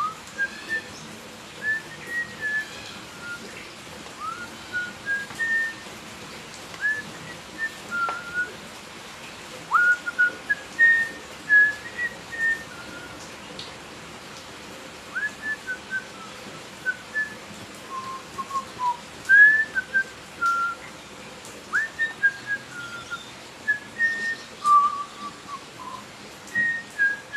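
Heavy rain hissing steadily, with a scatter of short whistled notes over it, roughly one every second, some sliding sharply upward.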